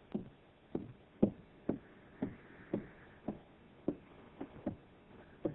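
Footsteps on a wooden staircase, an evenly paced series of knocks at about two steps a second.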